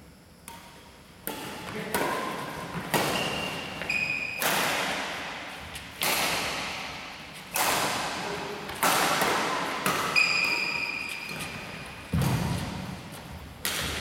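Badminton rally: racquets smacking the shuttlecock about once a second, each hit sharp and followed by a long echo in a large hall, with a few short high squeaks of shoes on the wooden court.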